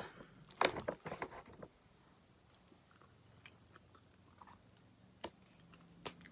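A person chewing a mouthful of macaroni and cheese, with wet mouth clicks and smacks. The clicks come thick in the first second or two, then only a few scattered ones.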